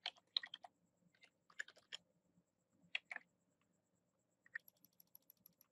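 Faint computer keyboard keystrokes and mouse clicks: a few scattered clusters of taps, then a quick run of light ticks near the end.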